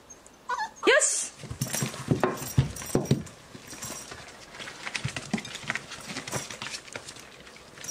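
Jack Russell terrier puppies giving a few short rising whines near the start, then an irregular run of light clicks and taps as they are set down at their food bowls and eat.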